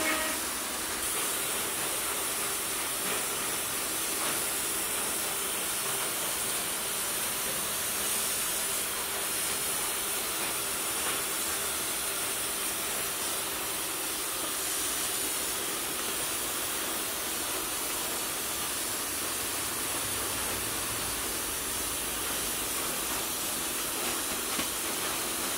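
Powder-coating gun hissing steadily as compressed air blows the powder out, with a faint steady hum underneath.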